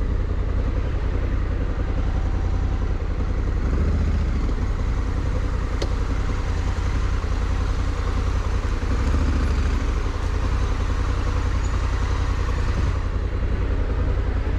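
Honda Africa Twin's parallel-twin engine running steadily under way on a dirt trail, with wind and road noise.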